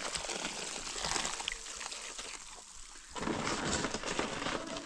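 Cement powder tipped from a sack into water in a metal mixing tray, splashing and hissing, louder again from about three seconds in.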